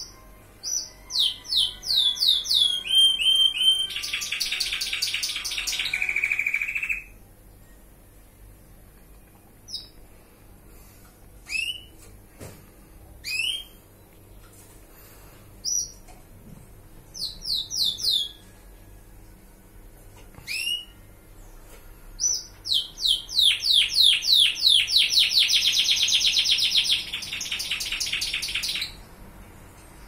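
White colour-bred canary singing: two long song phrases of fast trills and rapid falling notes, one starting about a second in and another about 22 seconds in, with single chirps between them.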